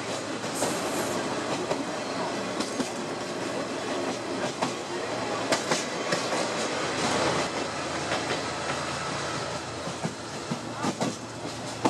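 Sagano Scenic Railway trolley train heard from its open-sided car with a grating floor: steady rumble of the car rolling on the rails, with wheels clattering over rail joints at irregular intervals, running through a tunnel around the middle.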